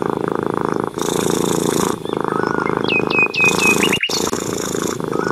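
Grey tabby cat purring steadily, the purr breaking with each breath about once a second. Small birds chirp over it a few times, with a quick run of calls about three seconds in.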